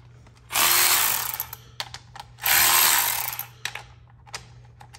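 Milwaukee M12 cordless electric ratchet running in two bursts of about a second each, spinning off the valve cover nuts on a Honda D16A6 engine.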